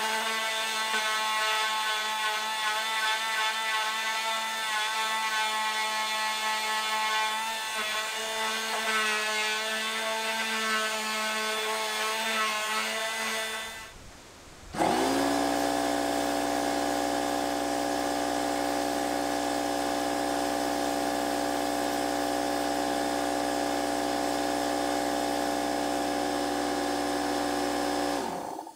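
Handheld power sander with a triangular pad running with a steady whine, sanding the filled wooden rim of an old wagon wheel. It stops for a moment about halfway through, starts again at a slightly different pitch, and cuts off just before the end.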